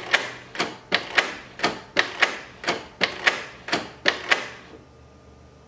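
Canon inkjet printer's mechanism clattering in a steady rhythm of sharp clicks, each with a short whir, about two or three a second. The clatter stops about three-quarters of the way through, leaving a faint hum.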